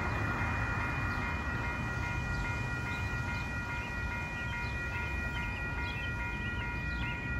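Railway crossing warning bell ringing steadily as the crossing signals activate for an approaching train, over a low rumble.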